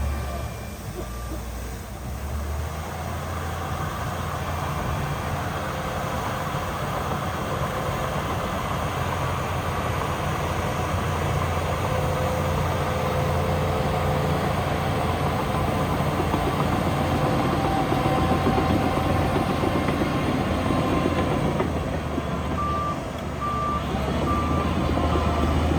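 Heavy diesel engines of earthmoving machines running steadily under load, with a reversing alarm giving a run of short, evenly spaced beeps near the end.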